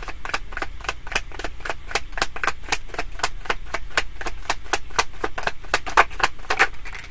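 A deck of tarot cards being shuffled by hand, giving a rapid, even run of crisp card snaps that stops shortly before the end.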